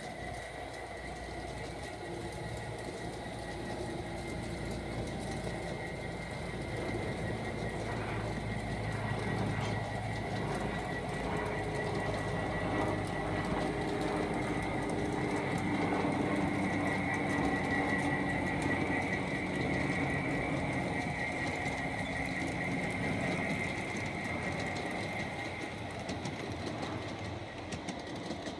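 Large-scale model trains, including Aristocraft Roadrailer cars, running on garden track: electric motors whirring and wheels rolling on the rails, with a steady high whine. It grows louder through the middle as the trains pass close, then eases off near the end.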